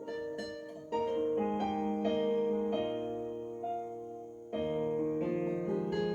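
Piano playing slow, sustained chords: new chords are struck about a second in and again past four seconds, each ringing and fading. It is music played back over Revel Ultima2 Gem2 three-way bookshelf speakers as a listening demo.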